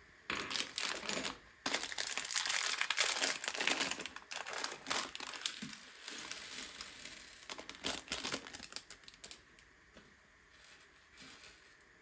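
Thin plastic LEGO parts bag crinkling as it is handled, a dense crackle that is busiest in the first half and dies down to a few small rustles near the end.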